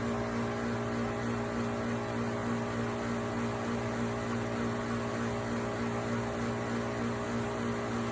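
GE 22-pint portable dehumidifier running: a steady hum of its compressor and fan, with a few constant low tones and no change in pitch.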